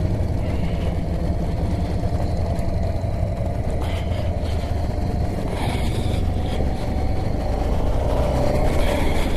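A motorcycle engine running steadily, with a constant low rumble and a faint steady hum that holds its pitch.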